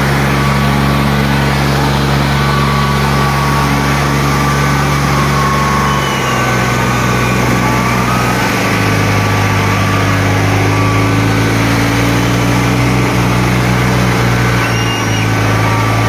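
Diesel tractor engines of a Kubota MU5501 and a New Holland 5500 running hard under heavy load. The engine note changes pitch around six seconds in and again around nine seconds.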